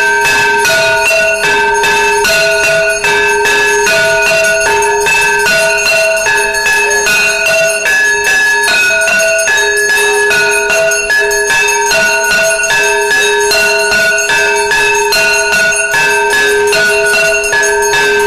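Temple bells rung rapidly and continuously for arati, with a steady hum underneath and two ringing pitches alternating back and forth in an even rhythm.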